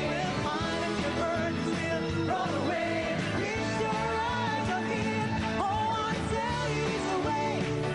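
Worship music with singing voices over a band with a steady beat and bass.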